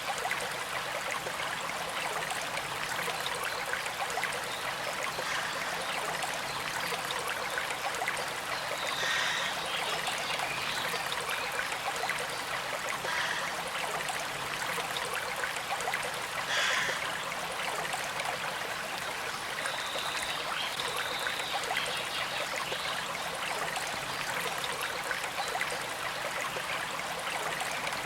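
Small creek flowing steadily, a continuous gentle trickle of moving water.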